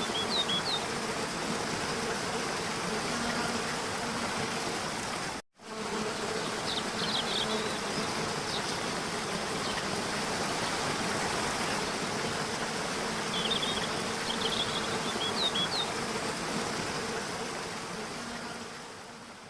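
Steady insect buzzing, a low hum, over an even rushing hiss like running water. Short, high bird twitters come three times. The sound drops out for a moment about five seconds in and fades away at the end.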